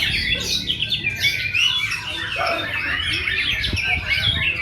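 White-rumped shamas (murai batu) singing continuously in fast, overlapping whistles and chirps, over a low background rumble.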